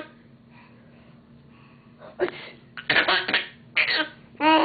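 A baby laughing: after about two seconds of quiet, a run of short, breathy laugh bursts, ending in a higher voiced squeal.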